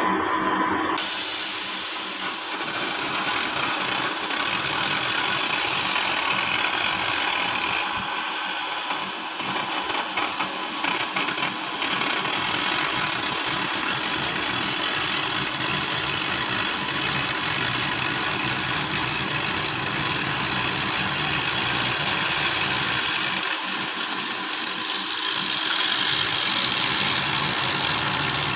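Oxy-fuel cutting torch on a CNC cutting machine giving a steady, loud hiss as it flame-cuts 20 mm mild steel plate. The hiss comes on suddenly about a second in, as the cut gets under way.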